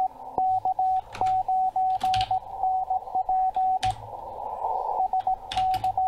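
Morse code (CW) from an amateur radio station on the 40-metre band, heard through an online WebSDR receiver: a steady single tone keyed on and off in dots and dashes at a slow sending speed, over receiver hiss. The keying breaks off for about a second after the middle, then resumes. A few computer keyboard clicks sound as the code is typed out.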